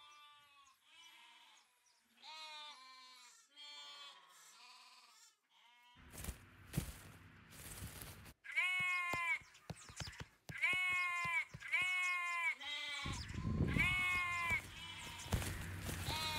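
Sheep bleating: a run of wavering calls that fall in pitch, faint at first and louder from about eight seconds in. A low rumble comes in underneath partway through and again near the end.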